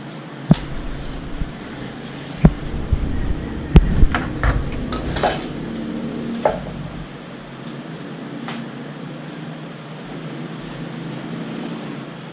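Hand tools clinking and knocking against a car radiator as it is being taken apart: a string of sharp metal knocks, some with dull thuds, through the first seven seconds, then only an odd knock over a steady hum.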